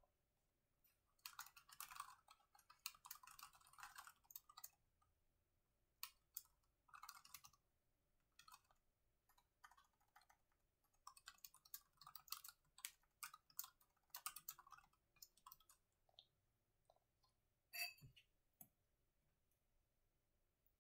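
Quiet typing on a laptop's chiclet keyboard: quick runs of key clicks in bursts with short pauses, thinning out in the last few seconds, with one sharper click near the end.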